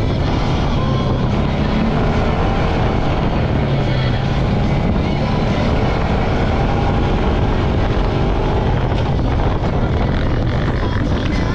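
ATV engine running steadily while the quad is under way.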